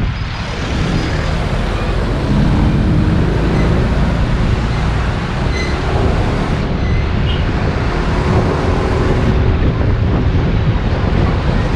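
Riding a motorcycle in traffic: wind rushing over the microphone mixed with engine and road noise, growing louder about two seconds in as the bike picks up speed, then holding steady.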